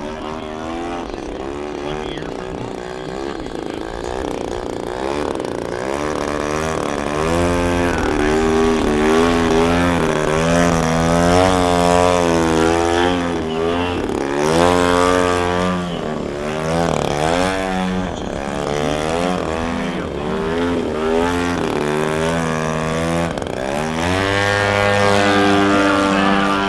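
Gas engine of an 89-inch Slick 3D aerobatic radio-control plane, a DA-60, its pitch swinging up and down quickly as the throttle is worked through hovering and aerobatic manoeuvres. Near the end the throttle goes up and the engine holds a steady high note as the plane passes close overhead.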